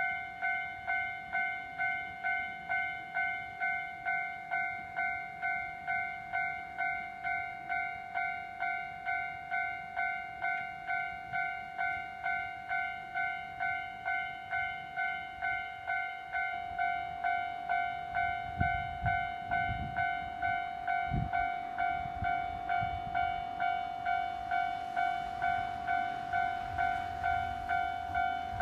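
Railway level-crossing warning bell ringing steadily, about two strokes a second, each stroke a clear ringing tone that dies away before the next. About two-thirds of the way through, a few low thuds and a low rumble come in under the bell.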